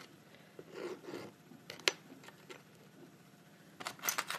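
Quiet hand-work sounds of precut art-glass pieces being set down on a glued mosaic board: a soft rustle about a second in, one sharp click just before two seconds, and a few small clicks near the end.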